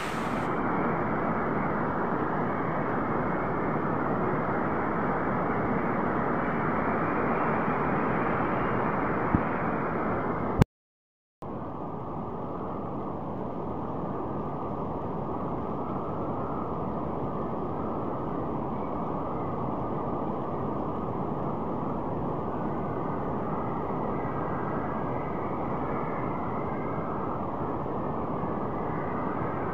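Very heavy rain pouring down in a steady hiss. It cuts out for under a second about eleven seconds in, then carries on duller.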